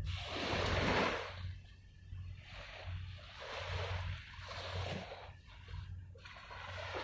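Small waves washing against the shore, coming in as about five swells of hiss, each roughly a second long, the first the loudest, over a steady low rumble.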